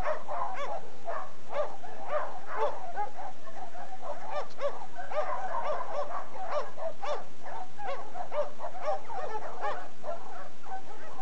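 Many dogs barking at once, short overlapping barks several a second keeping up without a break.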